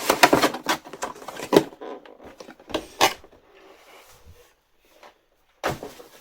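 Unboxing packaging being handled and set aside: rustling and clicking for the first second and a half, sharp knocks about one and a half and three seconds in, then a single loud knock near the end.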